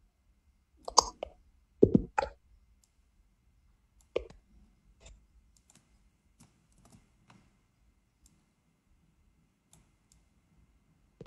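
Sharp clicks and knocks from a computer mouse and keyboard: a loud one about a second in, two close together around two seconds, another near four seconds, then a few faint ticks.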